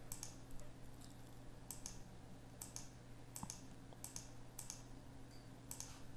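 Faint computer mouse clicks, about seven of them, often in quick pairs, roughly a second apart, over a steady low hum.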